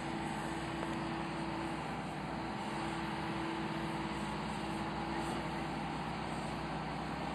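Bucyrus-Erie 54B crawler crane's engine running steadily, a constant drone with a few held tones, while the crane holds a rock boulder in its clamshell grapple.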